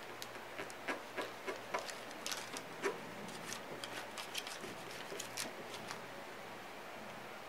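Fingertips rubbing and brushing over a waxed panel, burnishing gold leaf flakes: a run of small, irregular scratchy clicks that dies away about six seconds in.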